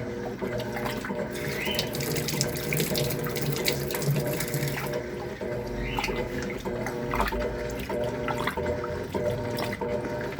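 Electrolux LTC10 top-loading washing machine filling with water: water pouring into the tub, with a steady hum underneath.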